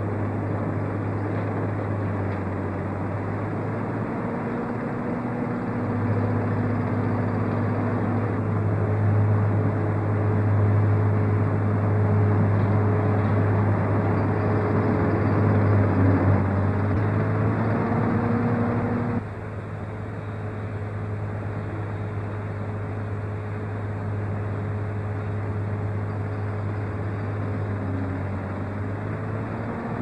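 Construction machinery engine running steadily, a low hum whose pitch rises and falls slightly at times. The level drops abruptly about nineteen seconds in, then the running carries on.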